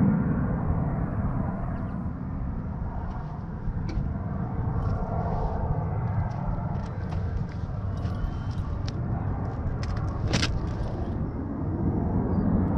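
Steady low outdoor rumble, with scattered light clicks and taps from hands working at a car's front fender panel and one sharper click about ten seconds in.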